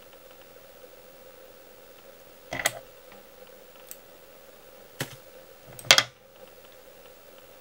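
Four short, sharp clicks and knocks roughly a second apart, the last one the loudest, over a faint steady hum.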